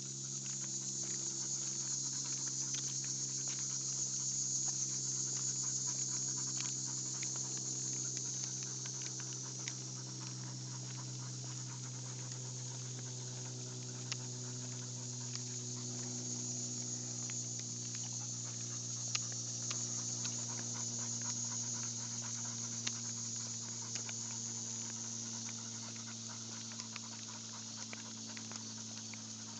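Dogs panting steadily as they pull along on their leashes, with scattered light ticks, over a steady low hum.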